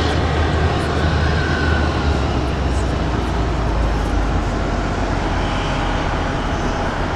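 Jet airliner engines running, a steady, dense rumble with no clear rise or fall.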